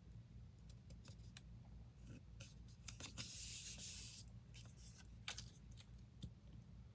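Faint paper handling: paper cutouts being pressed and rubbed down onto a paper collage by hand, with scattered light taps and a brief rubbing swish about three seconds in, over a low steady hum.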